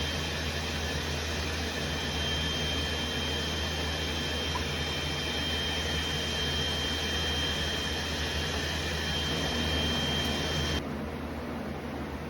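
Steady machine drone with a constant high whine over a low hum. It cuts off abruptly near the end.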